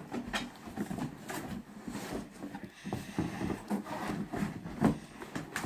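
Irregular rustling and light knocks of something being handled, with a sharper knock about five seconds in.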